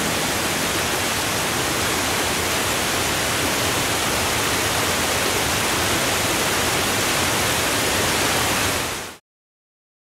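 Waterfall pouring down rocky cascades: a steady, even rush of water that fades out quickly about nine seconds in.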